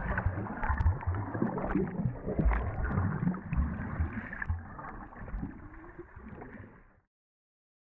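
Water sloshing and gurgling around an open-water swimmer's strokes, heard muffled by a camera at and under the surface, with many irregular low thuds. It fades and cuts off about a second before the end.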